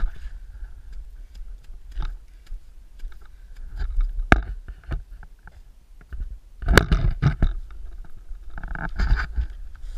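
Handling noise on a GoPro Hero3 held on a pole: scattered clicks and knocks from gloved hands gripping and shifting the pole, over a steady low rumble, with a louder scuffle of movement about seven seconds in.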